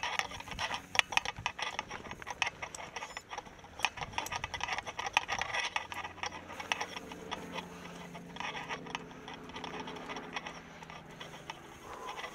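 Mountain bike being ridden over rocky trail: quick irregular ticks and rattles from the tyres and bike. About halfway through the clicking thins out and a steady low hum takes over.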